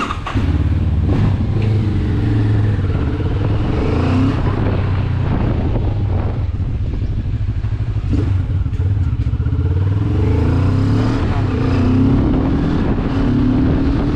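Benelli TRK 702 parallel-twin motorcycle engine pulling away and accelerating. The engine note climbs, drops at each gear change and climbs again, heard from the rider's position on the bike.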